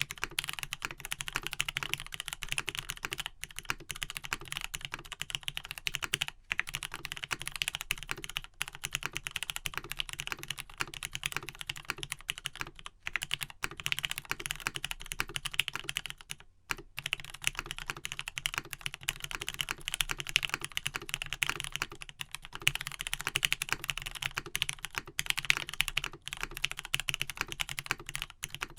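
Steady, fast typing on a Matrix 1.2OG mechanical keyboard with lubed Gateron Pink switches, a full aluminium plate and vintage Cherry doubleshot keycaps. The key clacks run densely, broken by a couple of brief pauses.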